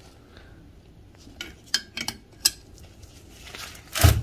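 Steel wrenches clinking against the nut and shaft of a diesel exhaust brake valve as the fastener holding its throttle plate is worked loose: a few light, sharp metal clicks through the middle, then one louder clunk near the end.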